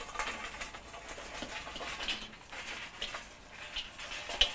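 Glowing charcoal poured from a chimney starter into one side of a kettle grill: a run of small crackles and clinks as the hot coals tumble out, with one sharper click near the end.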